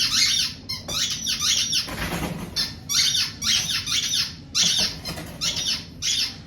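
Squeaker in a dog toy squeaking over and over as a dog chews it, short high squeaks coming about two or three a second in uneven runs.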